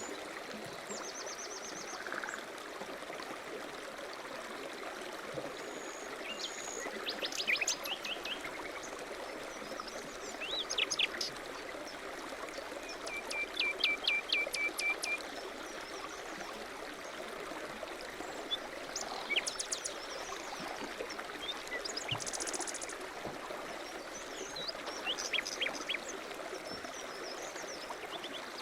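Small songbirds chirping and trilling in short phrases every few seconds, one a rapid run of repeated notes, over a steady rushing hiss like running water or wind.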